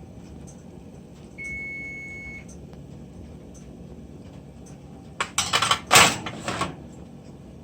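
A kitchen appliance beeps once, a steady electronic tone lasting about a second. About four seconds later comes a loud burst of clattering knocks, several in quick succession.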